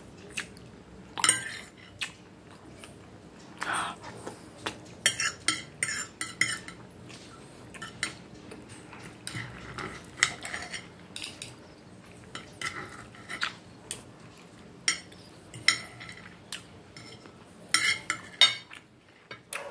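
Table knife and fork clinking, tapping and scraping against a plate while meatballs are cut up, in irregular sharp clicks with a few quick runs of taps.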